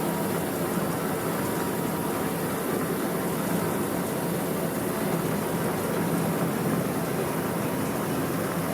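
Steady running noise of industrial machinery with a faint low hum, even throughout with no distinct strikes or cuts.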